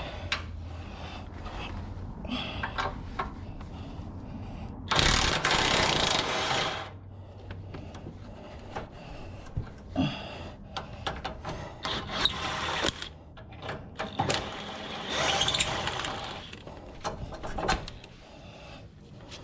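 A wrench working a 19 mm subframe bolt loose on an Acura RSX, heard as clicks and knocks with two loud stretches of mechanical rattling, one about five seconds in and one near fifteen seconds.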